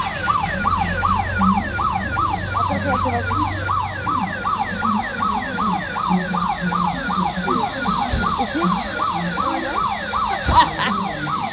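Vehicle alarm siren sounding in a fast repeating pitch sweep, about four sweeps a second, over a low engine rumble that fades about halfway through.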